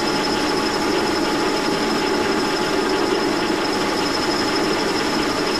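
A vintage Brown & Sharpe No. 2 horizontal milling machine spins a Criterion boring head with a carbide boring bar at 700 RPM, boring a hole in an old hard cast crank lever. Steady machine and cutting noise with a constant high whine.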